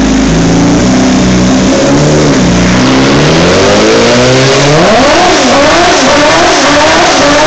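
Rotrex-supercharged Suzuki Hayabusa 1400cc inline-four engine of an autocross buggy running loudly on a roller dyno. It holds fairly steady speeds at first, then from about three seconds in it is revved up and down again and again in quick blips.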